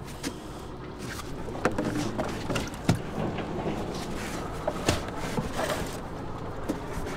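Fishing boat's engine running with a steady low hum, with scattered knocks and clatter of gear on board.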